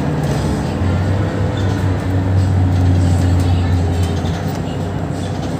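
Mercedes-Benz Citaro O530 city bus heard from inside the cabin while driving, its engine drone and road noise steady. About a second in, the low engine note drops in pitch and grows louder, then eases a little near the end.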